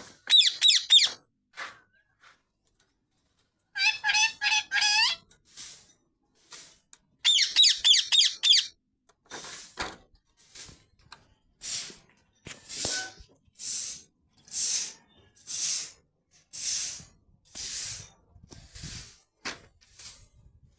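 Parrot calling: three bursts of rapid, wavering whistled notes, then a run of short, hissing squawks about once a second.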